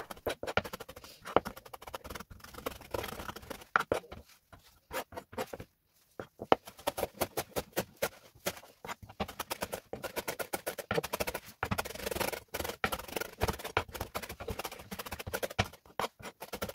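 Knife chopping fresh coriander leaves on a cutting board: rapid, rhythmic blade strikes against the board, with a short break about five seconds in.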